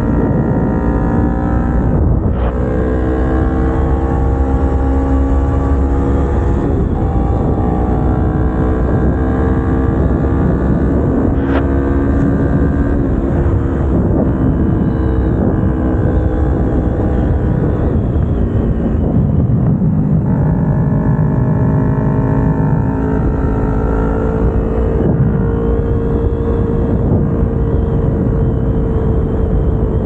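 Kawasaki Ninja 250R's parallel-twin engine running under way, its note slowly rising and falling and breaking off every few seconds as the revs change, over a heavy low rumble.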